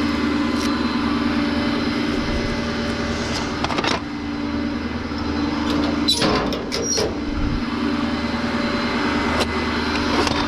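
A vehicle engine idling steadily, with a few sharp knocks and clatters about four and six to seven seconds in.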